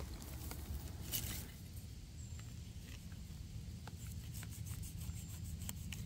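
Faint rustling and a few small clicks over a steady low rumble, with one brief scuff about a second in.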